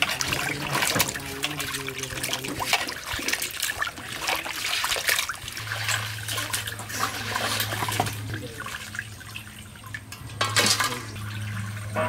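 Water splashing and sloshing as hands rub and turn pieces of dressed quail in a large metal bowl of water, with drips as the washed pieces are lifted out.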